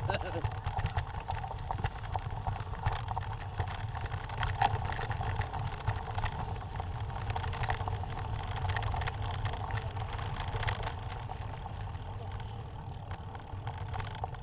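Mountain bike ridden over a rough dirt and gravel track, heard from a camera on the moving bike: a steady low rumble of tyres and wind on the microphone, with scattered knocks and rattles as the bike goes over bumps.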